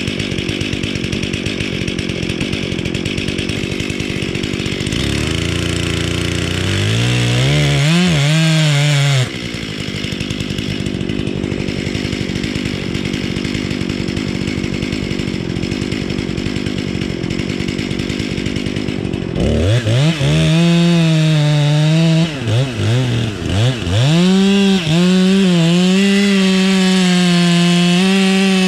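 Chainsaw with a 20-inch Stihl light bar and full-skip chisel chain, running on a large dead log. It runs steadily, is revved briefly about seven seconds in and again repeatedly from about twenty seconds in, then is held at full throttle as it cuts into the log near the end.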